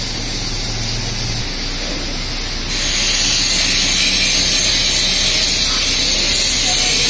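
Steady loud hiss with no clear pitch, which steps up in level and brightness about three seconds in and then holds.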